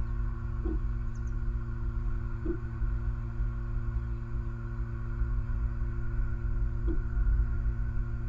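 Steady low rumble with a constant electrical hum from an outdoor nest-cam microphone, broken by three faint soft knocks and one faint high chirp about a second in.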